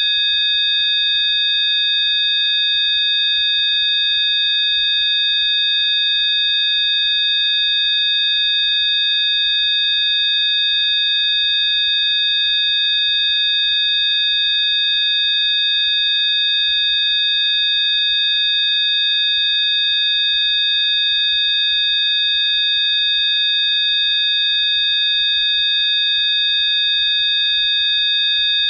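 Rife frequency tones: several high electronic sine tones sounding together, held perfectly steady with no change in pitch or loudness.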